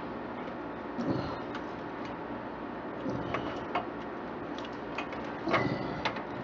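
Scattered light clicks and taps, about half a dozen, from hands working computer heatsink mounting hardware that is not going in easily, over a steady faint background hum.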